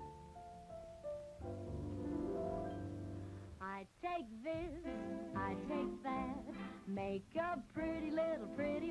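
A musical number: held instrumental chords for the first few seconds, then a woman's voice comes in singing over the accompaniment, about three and a half seconds in.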